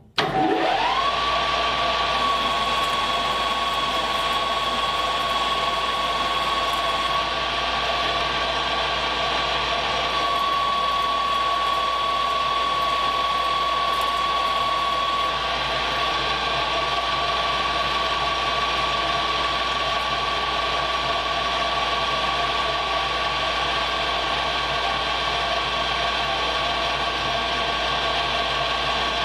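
Paulimot PM4000 metal lathe spindle starting up, its whine rising within about a second, then running at steady speed with a steady high whine over a mechanical hum.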